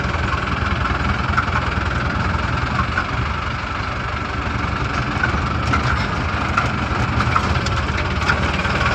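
Pickup truck's engine running and tyres on a rough dirt track, heard from inside the cab: a steady low rumble, with a few short knocks and rattles in the second half.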